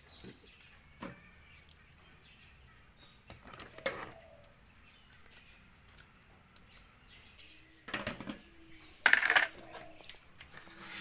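Scattered faint clicks and scrapes of a mud crab's shell being handled and trimmed with scissors in a stainless steel sink, with a louder clatter a little after nine seconds in.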